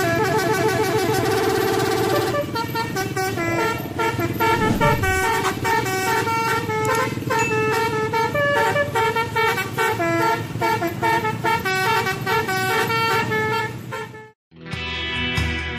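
Basuri telolet multi-tone bus horn playing a rapid melody of stepped, pitched tones. It cuts off near the end, and a band track with guitar and drums starts.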